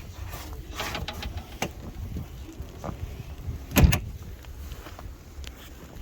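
Scattered knocks and clicks, with one heavy thump about four seconds in, over a steady low rumble.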